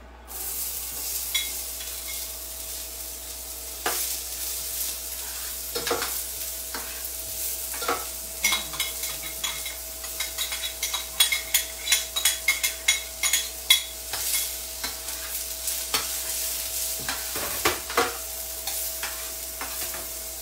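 Chopped onions sizzling in hot avocado oil in a stainless steel pan, the sizzle starting abruptly as the onions go in. A spoon scrapes and clinks against the pan as they are stirred, the clinks coming thick and fast through the second half.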